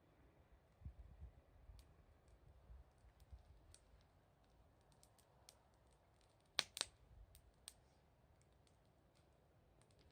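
Wood fire crackling faintly, with scattered small pops and a pair of sharper snaps a little past halfway.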